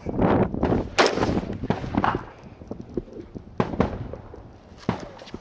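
Rifle shots on a shooting range: one loud shot about a second in, then several fainter, sharp cracks a few seconds later.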